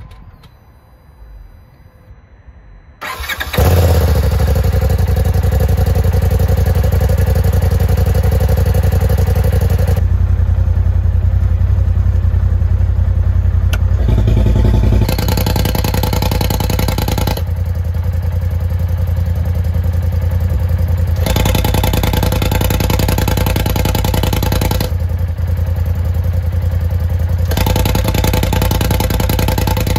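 Polaris RZR Turbo's turbocharged twin-cylinder engine idling while its exhaust is switched back and forth between the stock muffler and the open Trinity side-piece electronic cutout. The engine comes in loud about three seconds in. After that the sound keeps swapping every few seconds between a fuller, raspier note with the cutout open and a quieter, more muffled note through the stock exhaust.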